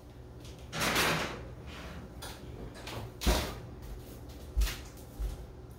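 Kitchen oven being loaded and shut: a short sliding scrape about a second in as the casserole dish goes onto the oven rack, then the oven door closing with a sharp clunk, followed by two softer thumps.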